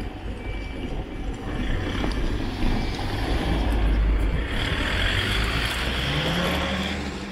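Road traffic: a heavy vehicle, such as a truck, running close by with a steady low rumble. It swells after a second or so, has a hiss through its middle part, and its engine rises in pitch near the end as it speeds up.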